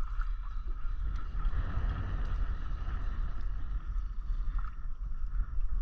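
Wind buffeting the action camera's microphone aboard a kayak at sea, a steady low rumble with a faint constant high tone underneath.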